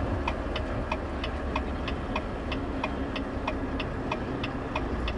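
Flasher relay ticking steadily in a semi-truck cab, about three clicks a second in an alternating tick-tock, signalling to pull over to the curb, over the low hum of the truck's diesel engine.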